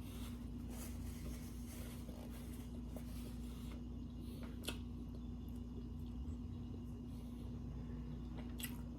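Soft chewing and mouth sounds from someone eating a taco close to the microphone, over a steady electrical hum. There are two sharp clicks, one about halfway through and one near the end.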